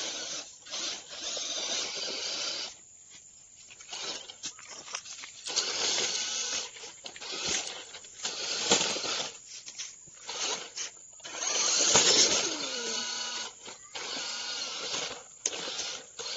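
Electric motors and gearboxes of toy radio-controlled 4x4 rock-crawler trucks whining in stop-start bursts of throttle, with a falling whine about twelve seconds in.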